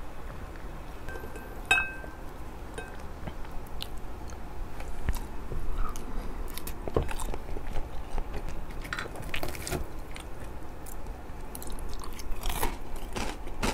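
A person chewing and biting food close to a clip-on microphone, with small crunches and mouth clicks. A short ringing clink comes about two seconds in.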